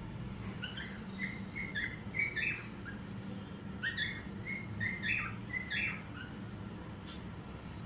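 Cockatiel singing: two phrases of short whistled notes, some gliding in pitch, then a fainter single note near the end, over a steady low background hum.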